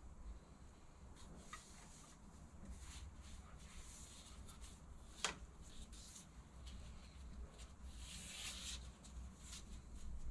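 Faint rubbing and handling noises with a low steady hum underneath, and one sharp click about five seconds in.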